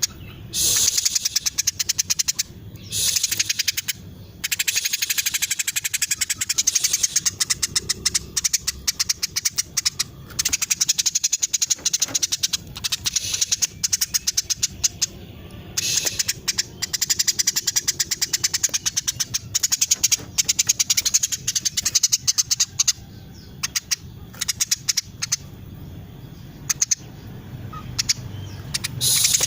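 Female Eurasian tree sparrow chirping in long, dense runs of rapid, high chirps, broken by short pauses.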